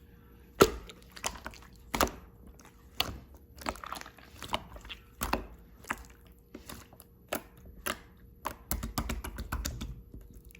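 Clear slime being squeezed and poked by hand, giving a string of irregular sharp clicks and wet pops.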